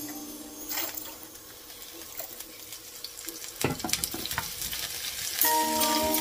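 Oil poured from a steel bowl into a frying pan of sliced onions and garlic, then metal tongs scraping and clicking against the pan as the onions are stirred, with light frying. Background music comes back near the end.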